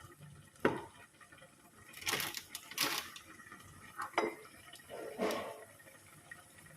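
Cookware being handled: pots, a lid and utensils clinking and knocking, about six separate short strikes roughly a second apart.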